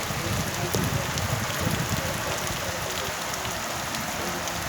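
Heavy rain falling: a steady, even hiss with scattered louder drop ticks, and a low rumble in the first couple of seconds.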